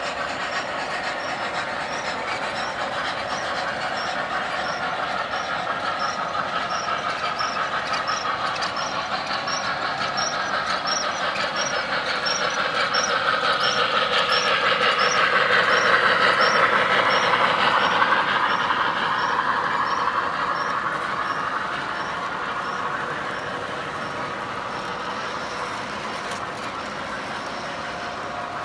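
MTH Premier PRR T-1 O-gauge model steam locomotive and express freight train running on three-rail track. It grows louder as it passes, loudest about halfway through, then fades as the cars roll by. Light regular clicks come about twice a second.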